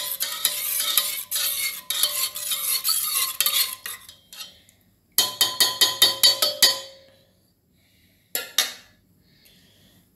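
Metal spatula stirring soup and scraping against an aluminium pot in quick repeated strokes for about four seconds, then stopping. About a second later comes a quick run of about ten ringing metallic taps on the pot, and near the end one short scrape.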